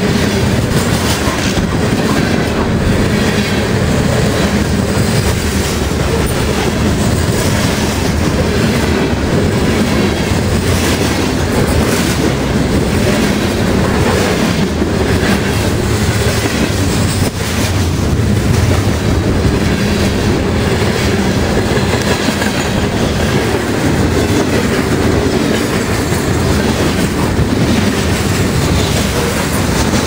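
A freight train's cars passing close by at speed: a steady loud rumble of wheels on rail, with the repeated clicks of wheels running over rail joints.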